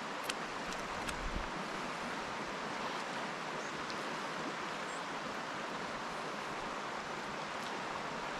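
Stream water rushing over a shallow riffle: a steady, even hiss with no break. A few faint clicks come in the first second and a half.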